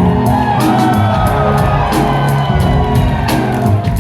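Live band playing an instrumental stretch of a song: bass, drums and keyboard sampler carrying a steady groove between the vocal lines.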